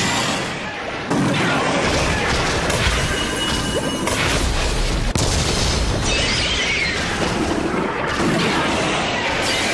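Kaiju-battle sound effects: a run of heavy booms and crashing impacts over background music.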